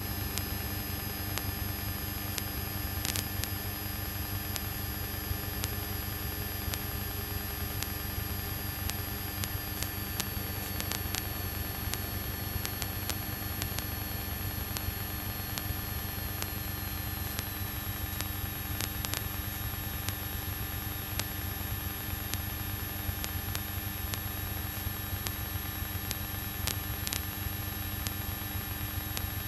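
Steady hiss and low hum of a light aircraft in flight, as heard through the cockpit intercom audio, with a faint high whine that slowly drops in pitch and a few faint clicks.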